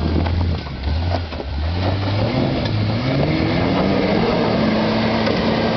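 Toyota Land Cruiser 80-series engine under load, its pitch climbing steadily for a couple of seconds and then holding, with scattered knocks in the first two seconds.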